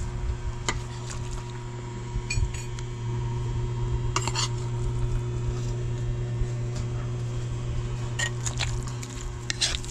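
Metal ladle scraping and clinking against a large metal cooking pan as thick cooked santol-and-coconut mixture is scooped out. There are scattered clinks, the sharpest about four seconds in and near the end, over a steady low hum.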